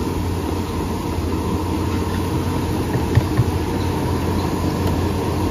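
Steady low engine-like rumble and hum, with two soft knocks a little past halfway.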